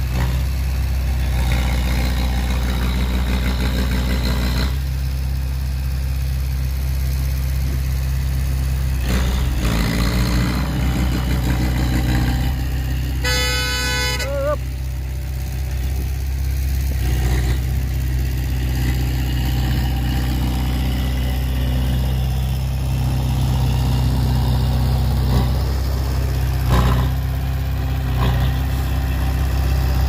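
Dump truck's diesel engine running steadily, with a vehicle horn sounding once for about a second and a half halfway through.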